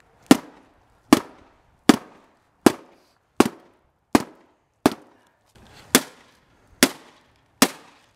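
A wooden rolling pin striking the cracked screen of a flat-screen TV, ten sharp hits at a steady pace of a little more than one a second.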